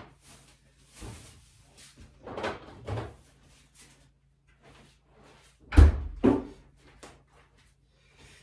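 Knocks and bumps of things being handled in a kitchen. The loudest is a pair of heavy thumps close together about six seconds in.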